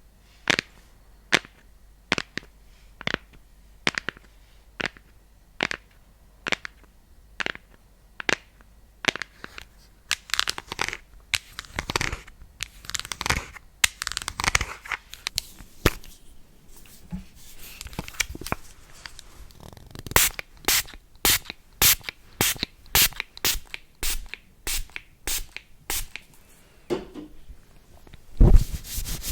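Close-miked ASMR trigger sounds. A slow, even series of sharp clicks gives way to scratchy rustling, then a faster run of clicks, and a steady rubbing begins near the end.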